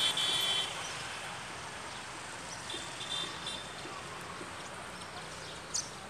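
A flock of house sparrows chirping at a feeding tray over a steady background hum, with a brief high buzzy note right at the start and again about three seconds in.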